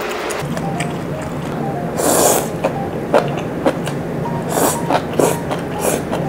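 Close-up eating sounds of malatang noodles being slurped and chewed: one long slurp about two seconds in, then several shorter slurps and wet mouth smacks.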